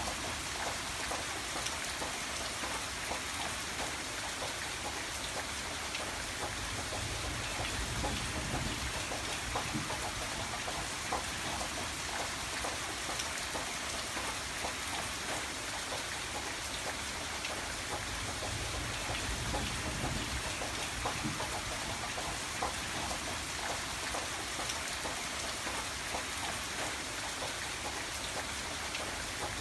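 Steady rain falling, with many separate drop hits heard through the hiss. A low rumble swells briefly now and then.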